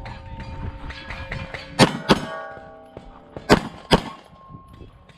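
Pistol shots on a steel-target course: four shots in two quick pairs, with steel plates clanging and ringing on in steady tones after the hits.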